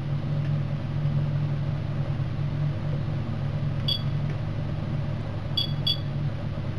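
Key beeps from an APEX on-board computer in a bus or tram cab: one short electronic beep about four seconds in, then two quick beeps near the end as its keys are pressed. Under them runs the vehicle's steady low hum while it stands.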